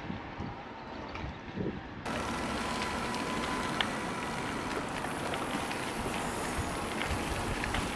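Steady wind and rolling noise of a moving e-bike, heard from the rider's camera. About two seconds in it turns suddenly brighter and a little louder, with a few faint ticks after that.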